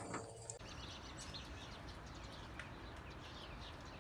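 Faint bird chirping, many quick short falling chirps over a steady hiss, starting about half a second in.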